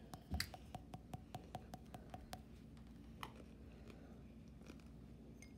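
A fingertip tapping lightly and quickly on the bottom of an upturned drinking glass: about a dozen faint taps at about five a second with a slight ring, then a couple of single taps. The tapping is meant to shake condensed droplets loose inside the glass so they fall like rain.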